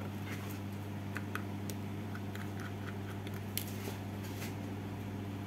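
Light scattered clicks and scrapes of a small screwdriver working screws out of a circuit board in a metal case, over a steady low hum.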